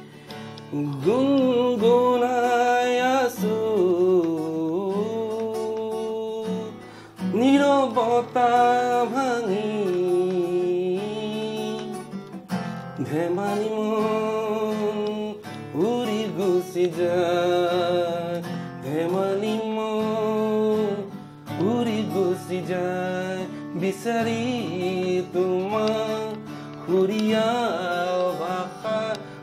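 A man singing a slow song in phrases of long, gliding held notes, accompanying himself on an acoustic guitar.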